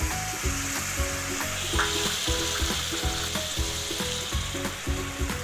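Chicken curry masala sizzling in a hot pan as a little water is poured in and stirred. The sizzle grows louder about two seconds in.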